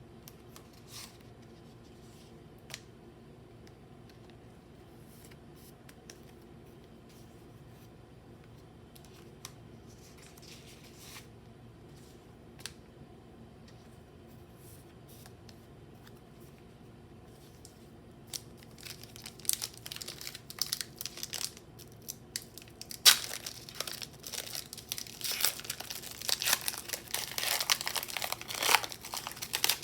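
A Pokémon booster pack's foil wrapper being torn open and crinkled by hand. The first part is quiet apart from a few light clicks and taps. About two-thirds of the way in, a sharp tear starts a long stretch of loud crinkling and tearing.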